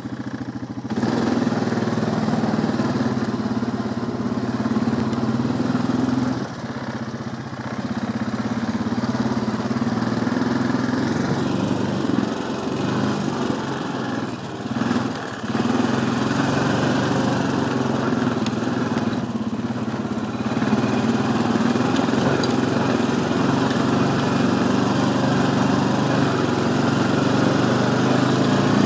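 ATV engine running steadily while the quad is ridden along a trail, its note dipping briefly a few times as the throttle eases off.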